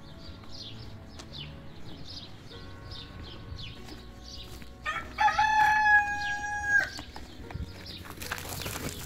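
A rooster crows once, about five seconds in: a single loud call held for about two seconds. Quick, high chirps repeat before it.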